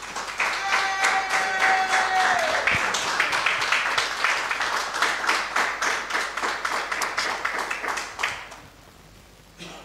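Congregation clapping and applauding, fading out about eight seconds in.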